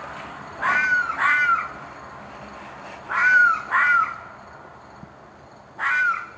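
An unseen animal giving short, screeching cries at night, five in all: two quick pairs and then a single call near the end, each bending down in pitch. The cries sound like distress, and the recordist guesses a fox or a coyote.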